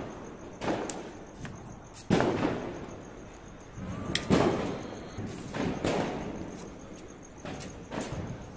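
Firecrackers going off: about seven sharp bangs spread irregularly a second or two apart, each trailing off in a short echo, the loudest about two and four seconds in.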